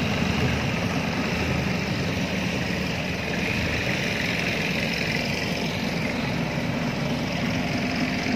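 Long-tail boat's engine running steadily, a constant low drone.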